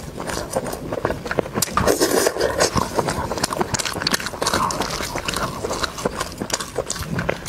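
Close-miked chewing of soft braised meat: a dense run of quick, irregular wet mouth clicks and lip smacks.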